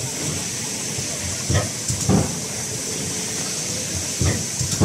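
Automatic cup thermoforming machine cycling: pairs of dull low thumps about every two and a half seconds over a steady high hiss.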